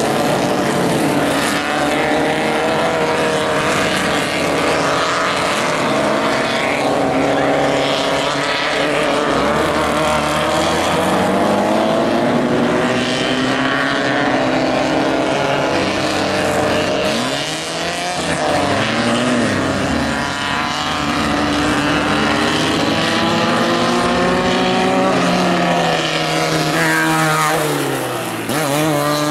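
Several Super 1600 class off-road racing buggies running hard on a dirt track, their engines overlapping, with pitch rising and falling as they rev and pass. A sharper rise and fall comes just before the end.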